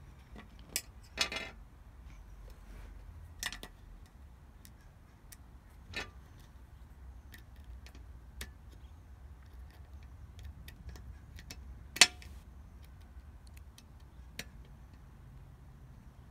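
Small screwdriver working the tiny back-cover screws of a Garmin vívofit jr 2 watch on a glass tabletop: scattered light metal clicks and taps, with a sharper click about twelve seconds in.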